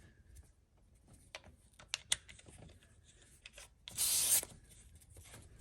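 A few faint clicks, then a brief hiss of air escaping from a tyre valve stem as a screw-on TPMS sensor is threaded onto it.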